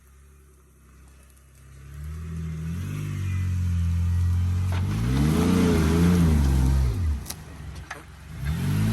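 Off-road 4x4's engine revving under load: it comes up about two seconds in and holds, swells up and back down, drops away, then revs briefly once more near the end.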